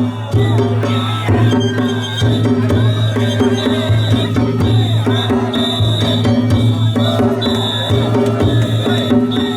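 Danjiri festival narimono: taiko drums and kane hand gongs beating a steady, driving rhythm, with the metal ringing on between strokes.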